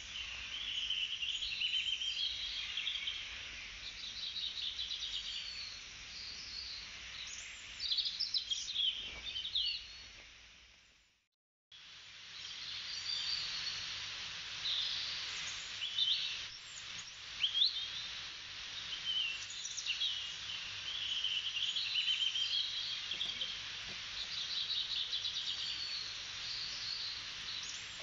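Nature sound-effect track of many small birds chirping and twittering together over a steady background hiss. It fades out about eleven seconds in and comes back a second later.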